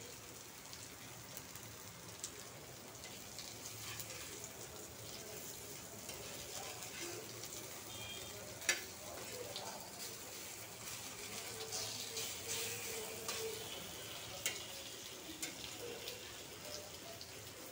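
Sesame-coated rolls sizzling in oil on a flat iron tawa, with scattered sharp clicks and scrapes of a metal spatula against the pan, the loudest about halfway through.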